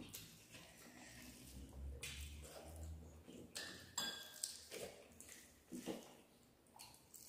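Quiet, wet eating sounds: mouths chewing and fingers mixing rice and potato curry on steel plates, in short soft bursts. About four seconds in, a brief ringing clink, as of a steel plate or bowl being touched.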